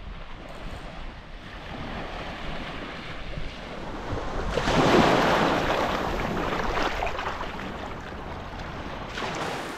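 Surf breaking and washing up a sandy beach. A wave swells to its loudest about halfway through, then slowly fades, with wind buffeting the microphone.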